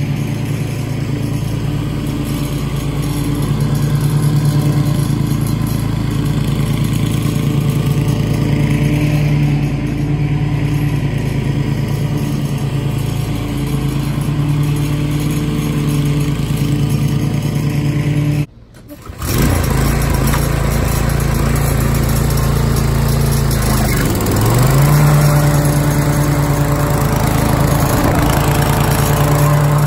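Toro TimeMaster push mower's engine running steadily as it mows. The sound cuts out briefly a little past halfway, then comes back louder and closer, and its pitch dips briefly about three-quarters of the way through.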